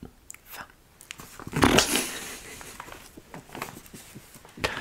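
Laughter: a loud burst of laughing about a second and a half in, trailing off into quieter breathy laughing.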